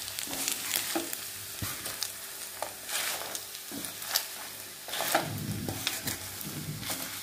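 Food sizzling as it fries in a pan, with a spatula stirring and scraping against the pan in irregular strokes.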